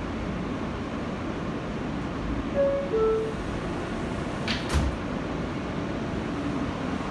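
R160A subway car's door-closing chime, two short descending tones, followed about a second and a half later by the sliding doors shutting with a knock. A steady low rumble from the car runs underneath.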